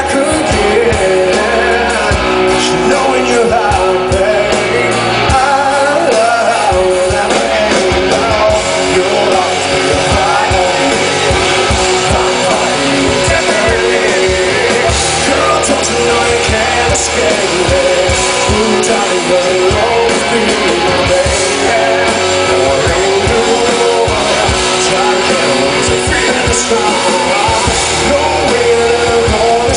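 Live rock band playing a pop-song cover, with electric guitar and a male lead singer's voice over the full band, loud and continuous.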